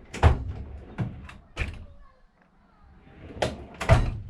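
Hand tools and a tool case being handled: a series of irregular knocks and clacks, pausing briefly about two seconds in, then louder clacks near the end.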